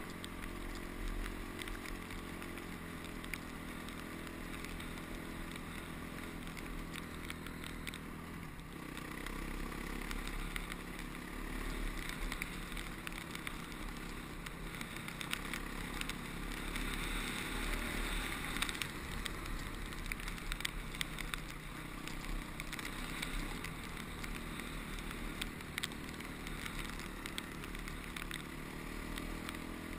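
Honda CRF250X dirt bike's single-cylinder four-stroke engine running under way, its note shifting with throttle and gear changes and climbing near the end, over a steady haze of wind and track noise.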